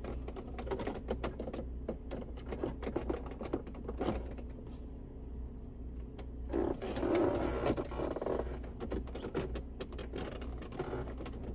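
Small plastic clicks and rattles of a car's cigarette lighter being worked at in its dashboard socket, with a brief rustle a bit past halfway; the lighter is stuck and won't pull out.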